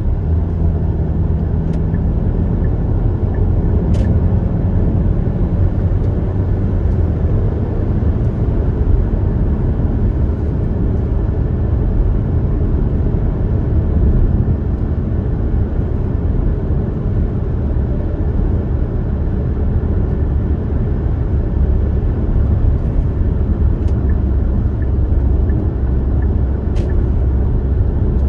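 Steady road and tyre noise of a car driving at highway speed, heard from inside the cabin: an even low rumble with a couple of faint ticks.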